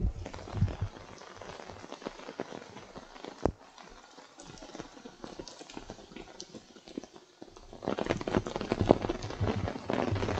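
Rain tapping irregularly on an umbrella close to the microphone, with footsteps on wet concrete steps; the tapping gets denser and louder about eight seconds in.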